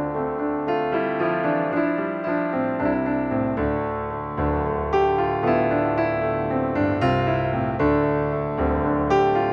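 Background instrumental music: a piano-like keyboard playing a flowing melody over chords.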